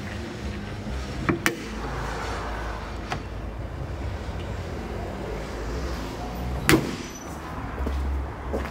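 Mercedes-Benz B200 with a steady low rumble, broken by a few sharp clicks and knocks, the loudest about two-thirds of the way through.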